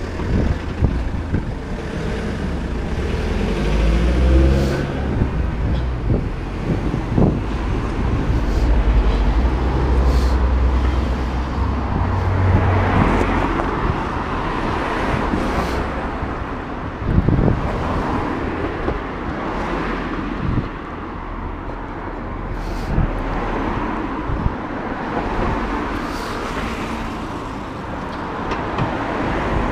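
Road traffic passing close by, cars going past one after another in a steady wash of tyre and engine noise. A deep low rumble runs through the first dozen seconds.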